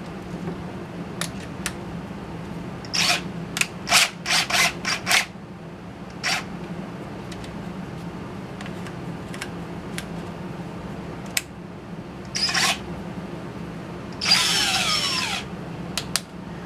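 Sharp clicks and clatter of the metal parts of a blind rivet drill adapter being handled and screwed together, then a power drill run briefly for about a second and a half near the end, its pitch gliding as it spins. A steady low hum sits under it all.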